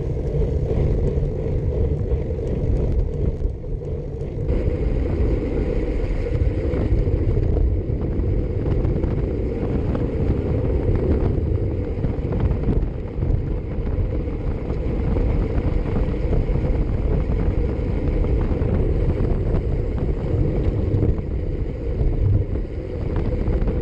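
Wind buffeting the microphone of a camera mounted on a moving road bike, mixed with tyre-on-asphalt rumble: a steady, low, dense rushing noise. A little more hiss joins it about four and a half seconds in.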